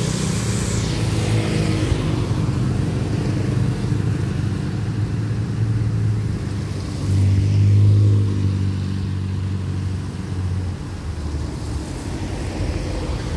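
Road traffic on a wet road: a car and motorcycles pass with tyres hissing on the wet surface, over a steady low engine hum that swells for a second or two in the middle.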